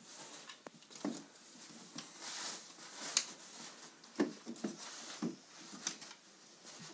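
Beagle mother sniffing and licking her newborn puppy on towel bedding: short snuffles and wet licks, with soft rustling of the cloth. The snuffles come in a cluster between about four and five and a half seconds in.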